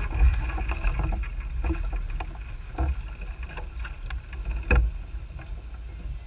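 Small sailboat under way: wind rumbling on the microphone and water noise, with a few sharp knocks about three and five seconds in.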